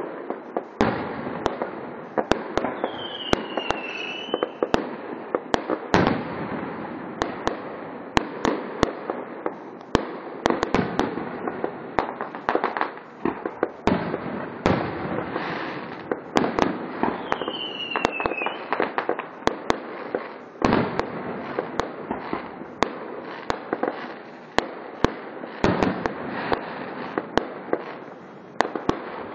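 Aerial firework shells bursting in a continuous barrage of sharp bangs, several close together at times, over a steady rushing noise. A short falling whistle is heard twice.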